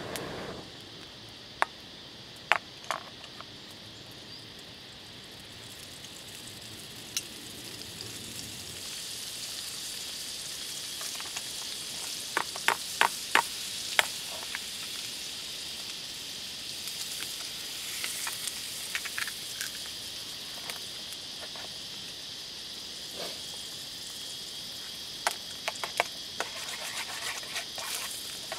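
Red onion and egg frying in a stainless frying pan over a campfire, with a steady sizzle that grows louder after the first several seconds. A utensil stirring in the pan gives sharp clicks: a few early on, a quick run about halfway through, and more near the end.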